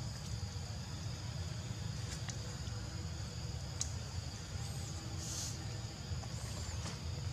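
Outdoor ambience: a steady high-pitched insect drone over a low rumble, with a few faint clicks and two short bird chirps in the second half.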